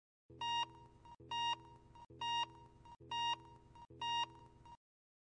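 Countdown-leader beeps: five short, high, steady-pitched beeps, one a second, each marking a number as the count runs down to one.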